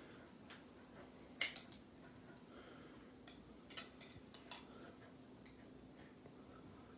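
A few faint, sharp clicks and taps from a knife cutting a flour tortilla around an upturned drinking glass on a countertop, the loudest about one and a half seconds in.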